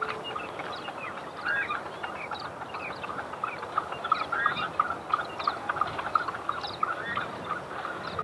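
Several birds calling at once, many short chirps and quick rising and falling notes overlapping throughout.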